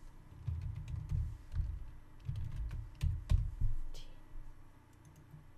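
Typing on a computer keyboard: an irregular run of keystrokes, with sharp clicks and dull thumps, that thins out near the end.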